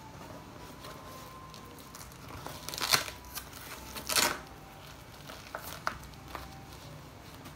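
Cloth blood pressure cuff being wrapped and fastened around an arm: rustling handling noise, with two louder rasps about three and four seconds in.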